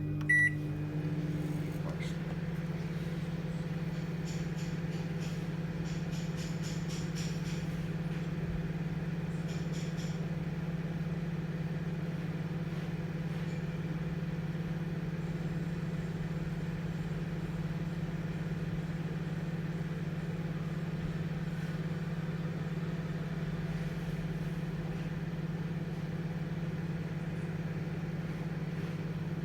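Midea microwave oven running on a heating cycle: a short beep right at the start, then a steady low hum of the oven working, unchanged throughout.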